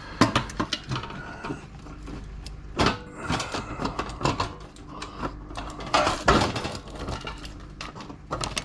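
Irregular clicks, knocks and rattles of metal and plastic parts being handled and pried at while a computer power supply is taken apart.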